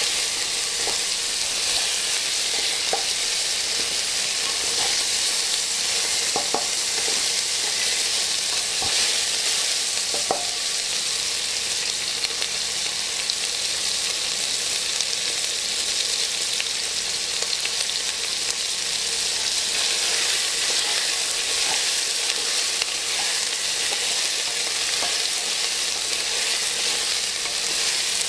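Food frying in hot oil in a pan: a steady sizzling hiss, with a few light clicks from stirring scattered through it.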